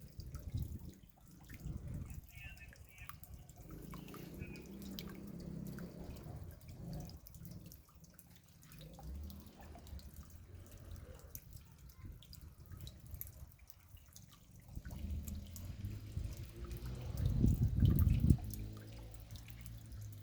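Rain dripping, individual drops ticking irregularly over a low rumble that swells near the end.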